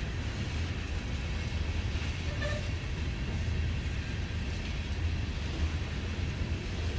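Empty aluminum coal hopper cars of a freight train rolling past on the rails: a steady low rumble of wheels on track.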